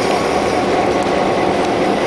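Diesel-electric locomotive engine running steadily, a dense, even drone.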